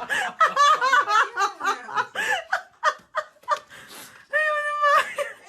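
A person laughing in quick bursts, with a quieter stretch partway through and one longer held voice sound near the end.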